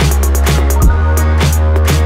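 Electronic background music with a steady drum-machine beat and a deep held bass.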